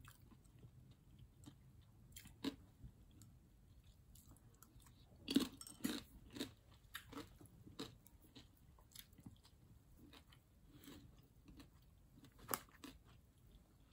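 Faint chewing with irregular crunchy bites, typical of crisp breaded fried food; the crunches are louder about five to six seconds in and again near the end.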